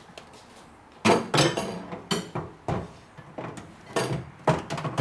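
Microwave oven set down on a wooden tabletop: a loud clunk about a second in, followed by several lighter knocks as it is shifted into place.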